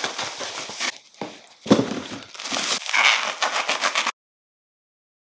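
Bubble wrap and plastic packaging crinkling and rustling as a wrapped package is handled and opened, with a thump a little under two seconds in. The sound cuts off to dead silence about four seconds in.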